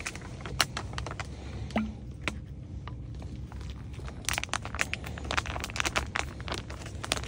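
MRE pouches crinkling and rustling in the hands, a scatter of sharp crackles that thickens from about four seconds in as protein-shake powder is shaken from its pouch into a plastic water bottle. A low steady rumble sits underneath.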